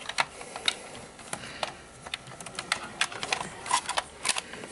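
Plugs and leads being handled at a plastic mains extension lead: a string of irregular sharp clicks and knocks as plugs are pushed into and pulled out of the sockets.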